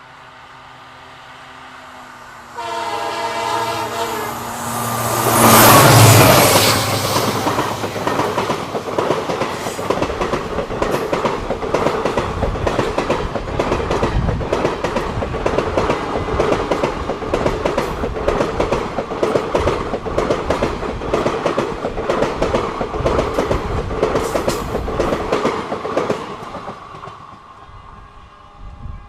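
WDP4 diesel locomotive sounding its multi-tone air horn in one long blast of about three seconds as it approaches, then passing close by, followed by the coaches clattering over the rail joints in a steady clickety-clack that fades out near the end.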